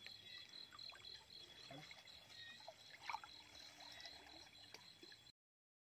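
Faint river water trickling and sloshing around a man wading while net fishing, with a small splash about three seconds in. The sound cuts off suddenly about five seconds in.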